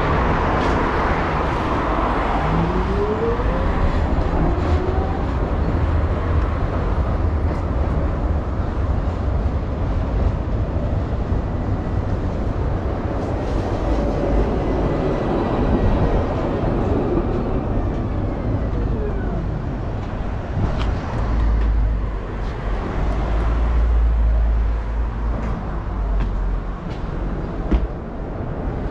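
Street traffic at a tram stop, with electric trams running: a tram's motors whine rising in pitch early on as it pulls away, and about 13 to 20 seconds in another tram comes in with whining, gliding motor and wheel tones. Heavy low rumble follows, with a few sharp clicks near the end.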